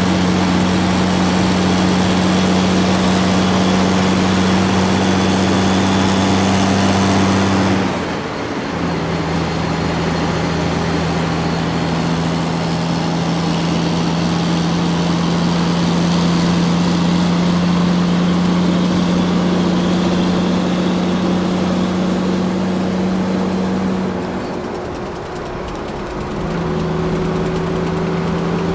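A large truck's engine running steadily under way, with a constant hum. It drops away briefly twice, about a third of the way in and again near the end, and each time settles back to a steady note.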